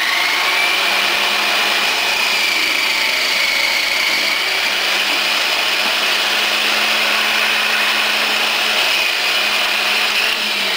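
Electric food processor motor running steadily with a high whine while broccoli stems are pushed down the feed tube onto the shredding disc. The motor starts to wind down near the end.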